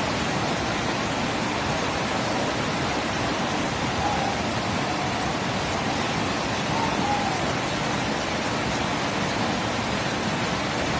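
Steady, unbroken rush of water from a creek that has burst its banks in flood.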